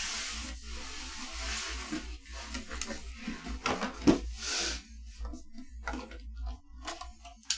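Handling of computer parts and their packaging: rustling at first, then scattered clicks and a sharper knock about four seconds in, followed by another short rustle.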